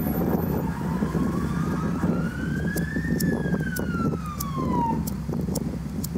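Emergency vehicle siren giving one slow wail, rising for about three seconds and then falling away over the next two, over steady low background noise.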